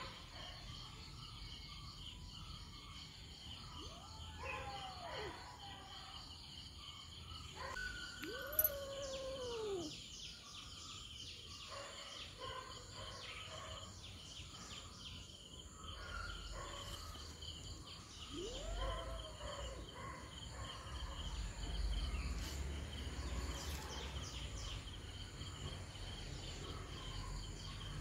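Kittens meowing three times, short calls that rise and fall in pitch, over a steady chorus of crickets and other insects. A low rumble comes in during the second half.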